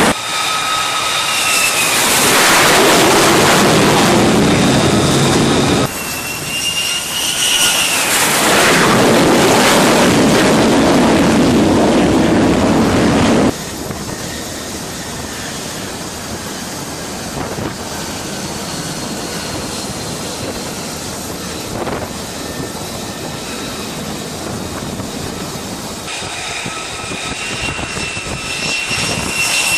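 F-35C fighter's jet engine, a single Pratt & Whitney F135, heard close by on a carrier flight deck in several edited shots: loud engine noise with a high turbine whine that falls in pitch as a jet passes. About halfway through it drops suddenly to a quieter, steadier engine sound, and it swells again near the end.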